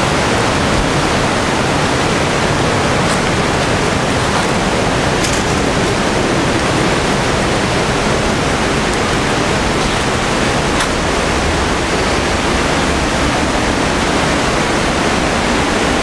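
Waterfall: a loud, steady rush of falling water.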